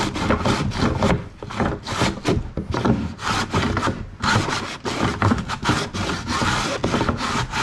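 Wooden sauerkraut cabbage shredder in use: a cabbage half is pushed in a wooden box back and forth over the blades, shredding cabbage in quick repeated strokes with wood sliding on wood.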